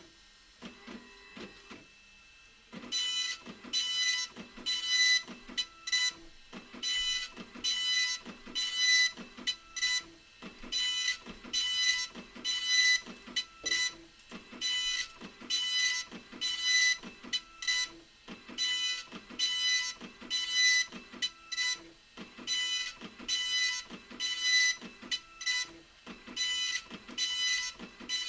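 Epson LQ2550 24-pin colour dot-matrix printer printing: its print head makes short, rapidly repeating high-pitched buzzing passes across the page, after a quieter pause of about two seconds near the start.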